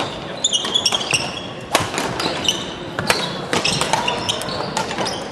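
Badminton play on a wooden sports-hall floor: sharp cracks of rackets striking shuttlecocks at irregular intervals, mixed with many short, high squeaks of court shoes.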